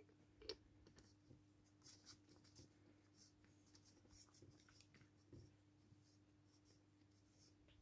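Faint clicks and light metal scraping as an Allen key turns the threaded CO2 plug in the base of a full-metal SIG Sauer SP2022 CO2 pistol magazine, with one sharper click about half a second in. A low steady hum sits underneath.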